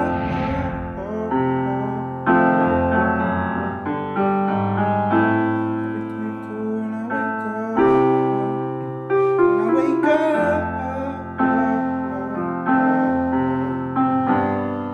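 Piano music: chords struck about once every second or so and left to ring and fade.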